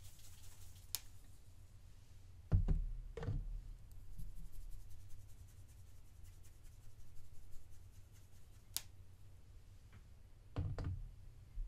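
Glitter shaken from a plastic shaker bottle onto blocks of gym chalk in a plastic tub: a faint sprinkling hiss. Dull knocks come about two and a half seconds in and again near the end, and two sharp clicks stand out.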